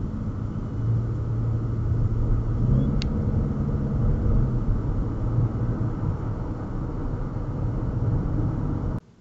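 A car driving along a road, heard from inside the cabin: a steady low rumble of engine and tyre noise, with a single sharp click about three seconds in. The sound cuts off suddenly near the end.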